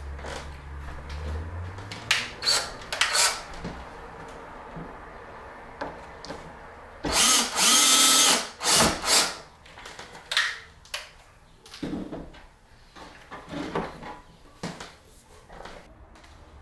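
Cordless drill used on the back of a wooden picture frame. It runs in a few short bursts, then one longer run of about a second and a half, with a brief burst right after. Light knocks follow as the frame is handled.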